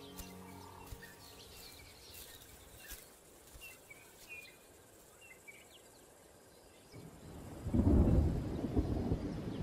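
Faint, scattered bird chirps, then about eight seconds in a deep rumble of distant thunder rolls in and becomes the loudest sound.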